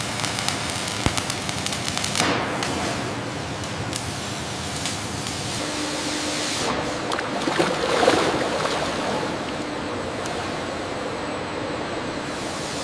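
Steady factory machinery noise, a continuous hiss with scattered sharp clicks, swelling briefly about two seconds in and again near eight seconds.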